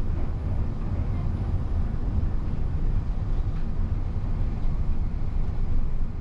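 Inside the cabin of a maglev train running between stations: a steady low rumble under an even hiss of running and air noise.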